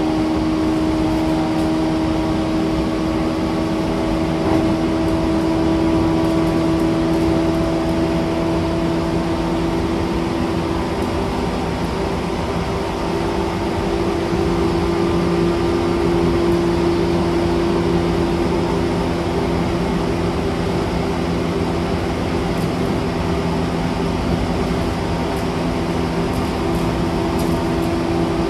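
Interior running sound of a JR East E235-1000 series electric commuter train at steady speed: wheel and rail rolling noise under a steady hum from the traction motors. The hum's higher tone fades out about nine seconds in, and the lower tones shift slightly around the middle.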